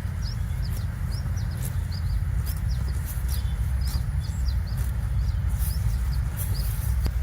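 Small birds chirping over and over, short high chirps several a second, over a steady low rumble.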